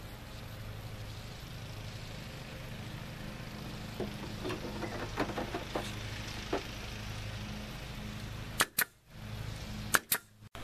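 Pneumatic nail gun firing four sharp shots in two quick pairs near the end, nailing thin wooden strips to a wooden frame. A steady low hum runs underneath, with a few light taps in the middle.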